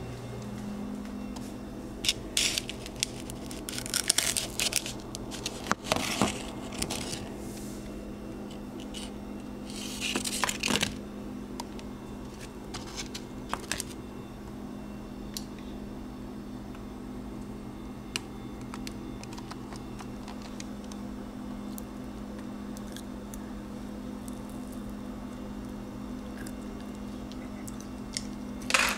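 A plastic knife scraping and pulling at sticky, freshly melted marshmallow on a paper plate: scattered scrapes, clicks and tearing sounds, busiest in the first ten seconds or so. A steady low hum runs underneath.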